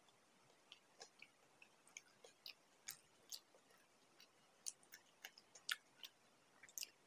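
Faint close-up chewing of a samosa: soft, irregular mouth clicks and light crunches, a few each second.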